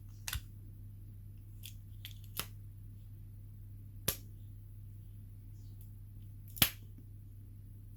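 A few scattered small clicks and taps of lock parts being handled during padlock disassembly, as a pin is worked out of its chamber; the loudest click comes near the end.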